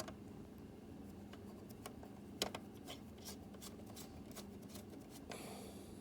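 Scattered light clicks and taps of small parts being handled, with a brief scrape near the end, over a steady low hum.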